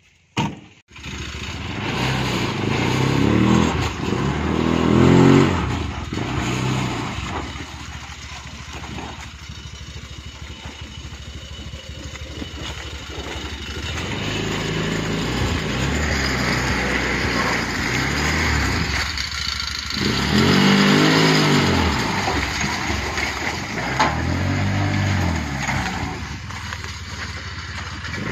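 Petrol-engined three-wheeled cargo motorbike (xe ba gác) running, its engine revving up and falling back several times.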